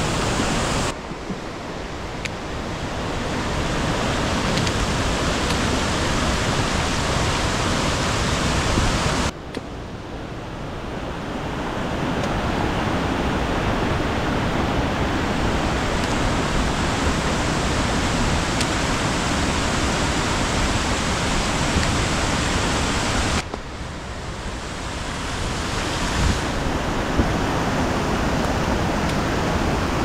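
Waterfall's falling water rushing steadily. Three times the sound drops suddenly and builds back up over a few seconds.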